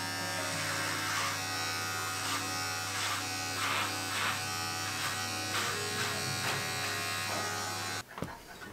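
Electric hair clippers running with a steady buzz as they cut through long hair, the sound roughening now and then as the blades bite in. The motor switches off about eight seconds in.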